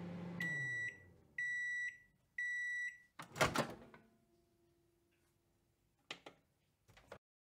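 Microwave oven finishing: its running hum winds down and fades, then three steady beeps about a second apart signal the end of cooking. Then comes a loud clatter of the door being pulled open, a faint hum, and two short clicks near the end.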